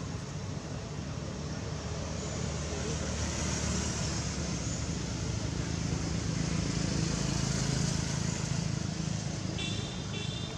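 Steady road-traffic and vehicle engine noise that swells gently and then eases, with two short high chirps near the end.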